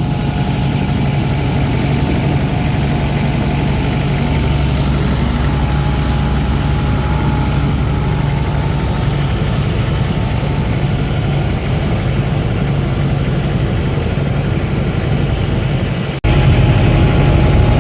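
Tourist boat's engine running steadily, a loud drone. It drops out for an instant near the end and comes back louder.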